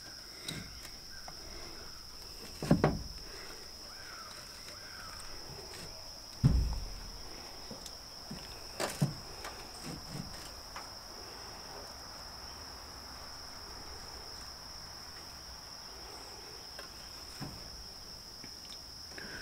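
A few knocks and thumps of the cast-aluminium Eaton M112 supercharger and lower intake manifold being handled and set against each other, the two loudest about three and six and a half seconds in, with lighter taps a few seconds later. Insects keep up a steady high drone underneath.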